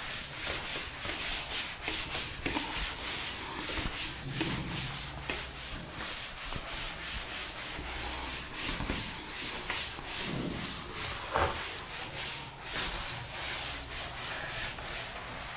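Handwriting: a steady run of quick, scratchy strokes, about three a second, with an occasional soft knock.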